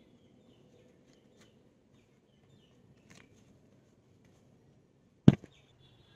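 Faint clicks of a deck of playing cards being handled during one-handed cut flourishes, then one sharp, loud click about five seconds in.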